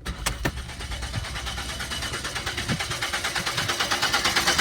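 Ford Escape's 2.3-litre four-cylinder engine being cranked by the starter, turning over in an even rhythmic pulse that grows slightly louder but never catches: a crank-no-start, cause unknown.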